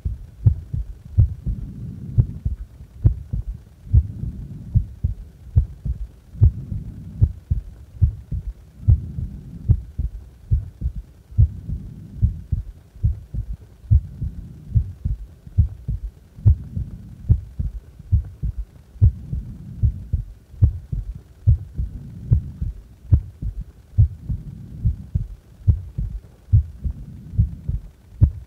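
Heartbeat of a heart at rest, a steady run of low, even thumps about once a second.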